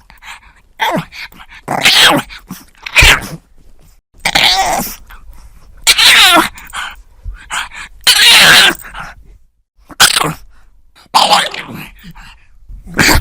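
A pug snorting and grunting in a string of short bursts every second or two. Some are pitched grunts and some are noisy snorts through the nose: the noisy breathing typical of this short-snouted breed.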